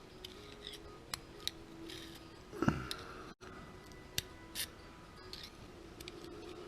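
Scattered light metallic clicks and clinks, as of tools and parts being handled, over a faint steady hum, with one dull thump about two and a half seconds in.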